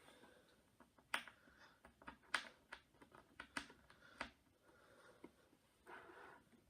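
Irregular small clicks and taps of a precision screwdriver and tiny screws against an iPad 2's LCD frame as the LCD is screwed back in, with a brief soft scrape near the end.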